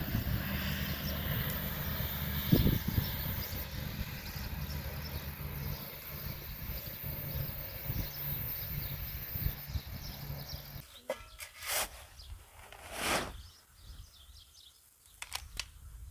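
Outdoor ambience: a steady rushing background with faint bird chirps. About eleven seconds in it changes abruptly to a quieter scene with a few short rustles or knocks.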